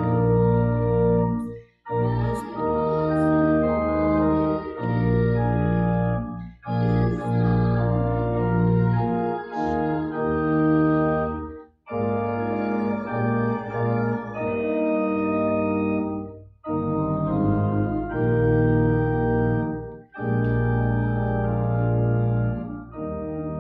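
Organ playing a slow hymn tune in sustained chords, phrase by phrase, with a brief break about every four to five seconds.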